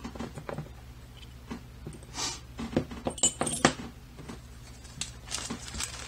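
Small metal lock parts of a disassembled Desmo lock being picked up and set down: scattered light clicks and metallic clinks, the sharpest cluster a little past the middle.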